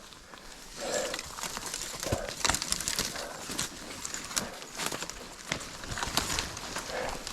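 Footsteps and the crackle and rustle of dry grass and brush being trampled and pushed aside while walking, with irregular snaps and a few dull thuds.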